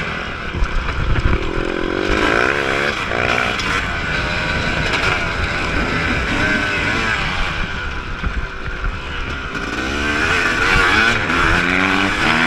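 Yamaha YZ250 single-cylinder two-stroke motocross engine, heard from on the bike, revving up and down again and again as the throttle opens and closes through the ride.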